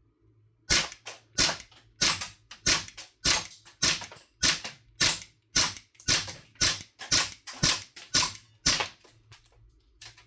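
CO2-powered airsoft pistol firing semi-automatic, a quick string of sharp pops about one every half to two-thirds of a second, until the magazine is emptied.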